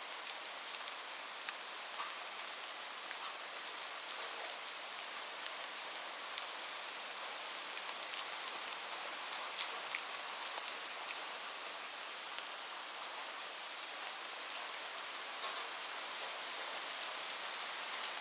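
Steady rain falling on a surface, a constant hiss with many scattered individual drop ticks.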